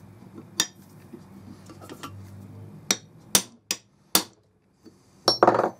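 Sharp metal-on-metal knocks and taps from steel riveting work on a rivet snap in a vise. Single knocks come spaced out, with four in about a second and a half past the middle, then a quick cluster of knocks near the end.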